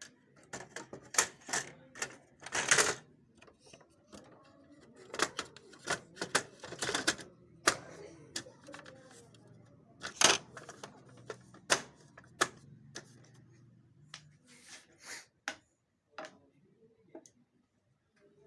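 Hard plastic cover parts of a Xerox WorkCentre 5855 document feeder being handled and fitted back on: irregular clicks, knocks and snaps. They are loudest in the first few seconds and again around ten seconds in, and thin out near the end.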